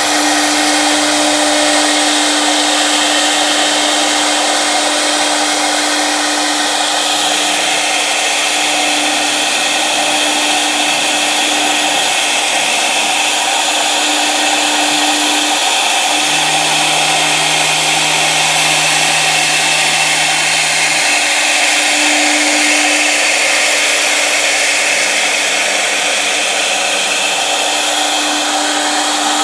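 1325 CNC router running: a loud, steady whine and rushing noise, with a lower hum that shifts in pitch now and then.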